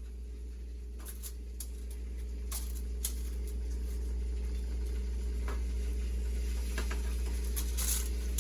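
Scattered light clicks and knocks of kitchen items being handled, over a steady low hum. The background level rises slowly.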